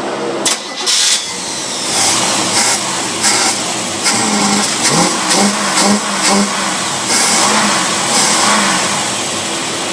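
Test engine running on a Rochester two-barrel marine carburetor, revved up in a series of short throttle blips.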